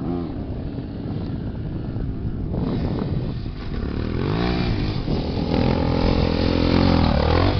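Dirt-bike engines revving and accelerating: the engine note grows louder about a third of the way in, swings up and down in pitch, then climbs and holds high before falling off near the end.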